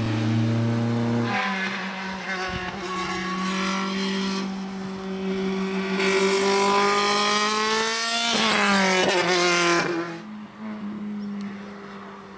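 Race car engines running hard, one car after another: a steady high engine note, then a louder one rising in pitch, which falls away about eight seconds in as the car passes. A quieter, lower engine note follows near the end.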